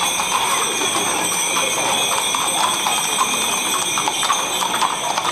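Hooves clopping on the street and bells jingling over a steady murmur of crowd voices as animals pass in a procession.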